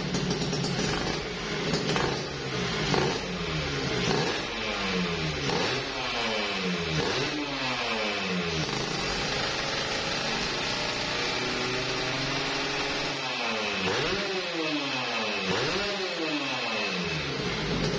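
Freshly rebuilt Kawasaki Ninja RR two-stroke single-cylinder engine being blipped on the throttle while warming up. The revs jump and fall back several times in the first half and again near the end, with steadier running in between.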